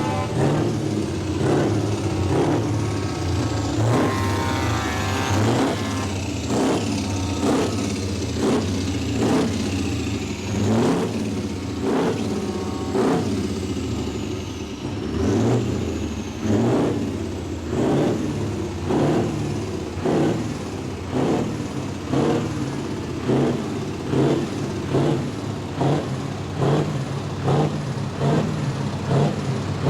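Scania truck engine running, with a rise in level about once a second, and a brief pitched tone about four seconds in.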